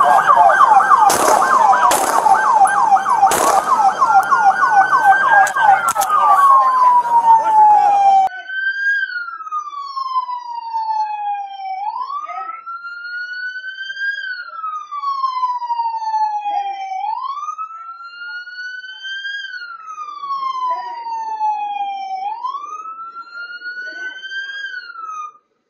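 Police car sirens: several overlapping, one in a fast yelp, with three sharp knocks in the first few seconds. About eight seconds in this changes abruptly to a single quieter siren wailing up and down slowly, about once every five seconds.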